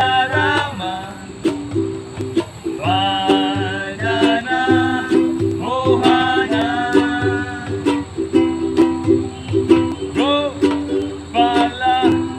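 Kirtan music: voices chanting a mantra melody over strummed string chords and a steady low beat.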